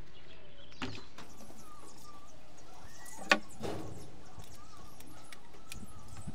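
Light handling knocks of a plastic two-pole wall switch and a screwdriver, the loudest a single sharp click about three seconds in, over a steady background hiss with faint bird chirps.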